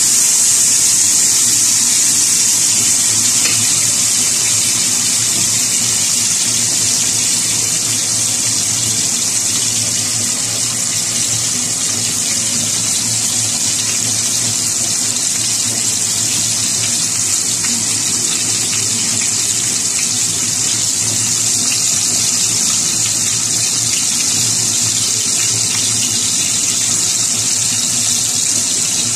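Whole spice-coated fish frying in hot oil in a pan: a loud, steady sizzle.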